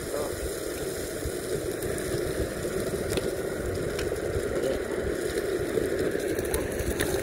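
Meepo Mini 2 electric skateboard riding over a packed dirt, leaf-strewn trail, its wheels making a steady rough rolling noise, with a few faint clicks.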